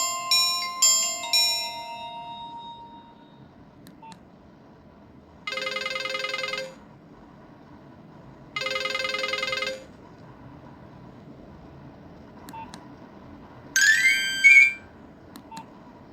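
Nokia 1661 mobile phone playing ringtones through its small speaker. A short melody fades out, then two separate buzzing electronic tones sound for about a second each. Near the end a brief, rising chirpy tone plays, with a few faint clicks in the gaps between tones.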